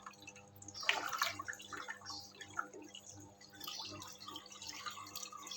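Spinach being washed in a basin of standing water: leaves swished and lifted, with light irregular splashing and dripping over a faint steady hum.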